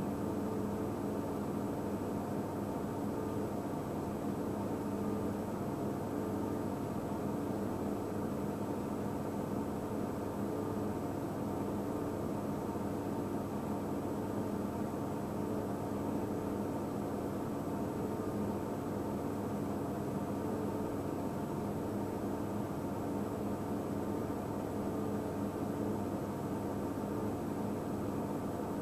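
A vehicle idling: a steady mechanical hum with several held low tones and a faint high whine, unchanging.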